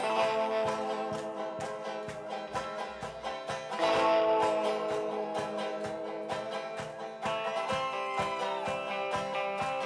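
Banjo and electric guitar playing an instrumental passage together: quick picked banjo notes over sustained guitar notes, with a strong accent about four seconds in and a bending note near the end.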